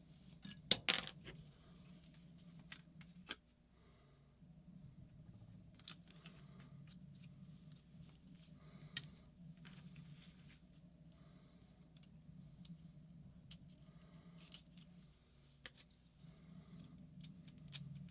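Small metal parts and tools clinking and clicking as they are handled on a workbench, with a sharp metallic clatter about a second in, over a steady low hum.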